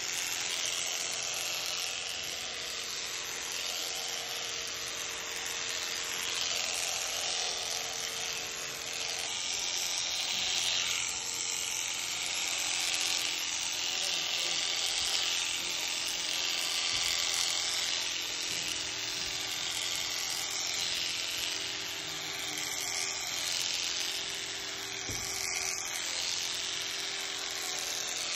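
Electric shearing handpiece running with a steady buzz as its comb and cutter clip through llama fleece.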